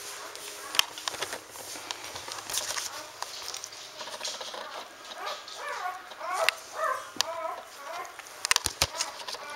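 Newborn standard poodle puppy nursing, with many short wet smacking clicks of suckling. From about five to seven and a half seconds in come a run of short, high squeaks and grunts that waver in pitch.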